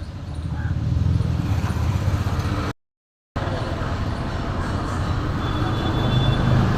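A car's engine running steadily, broken by a half-second gap of silence about three seconds in, after which the running sound is rougher and noisier.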